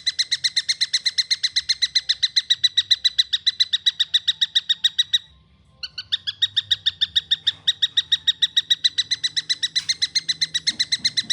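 Young tengkek buto kingfisher calling a fast, even run of short, high, clear notes, about eight a second. The run breaks off about five seconds in and starts again after a pause of half a second.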